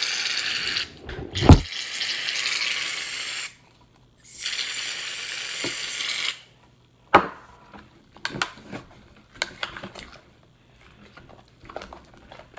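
Aerosol can of shaving cream spraying into a plastic bowl in three long hissing bursts, with a sharp thump about a second and a half in. About seven seconds in comes a sharp knock, then scattered small clicks and taps.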